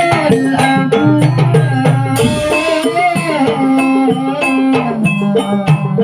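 Loud live music from a patrol percussion band: a busy rhythm of drums and percussion under plucked or struck melody lines, with a cymbal-like crash about two seconds in.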